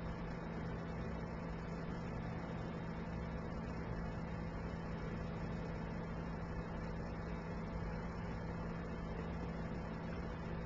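Steady low hum with a faint even hiss and no distinct events: background room noise.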